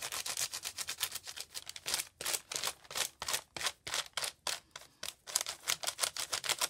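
A Crayola oil pastel scribbling across crumpled notebook paper, in quick back-and-forth scratchy strokes, several a second, with the paper crackling under the hand.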